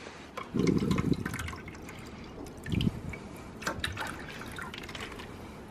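Water sloshing and dripping from a tilted plastic water bottle, with two short louder bursts, about half a second in and again near three seconds, and light taps between.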